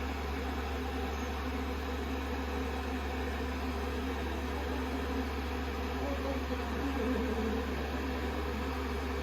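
Hand-held hair dryer blowing steadily with an even whoosh and low hum, drying a kitten's wet fur after a shampoo.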